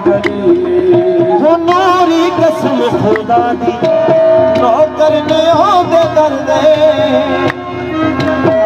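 Qawwali ensemble performing: harmonium playing sustained notes under male singing voices, with hand-drum strokes and rhythmic handclaps.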